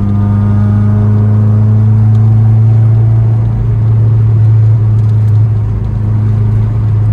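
Honda Civic EK4's four-cylinder engine running steadily at an even speed, heard from inside the cabin as a constant drone.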